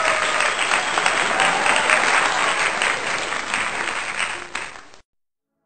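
Several 3-week-old puppies lapping and chewing food from a plastic bowl together: a dense, steady crackle of wet clicks that cuts off suddenly about five seconds in.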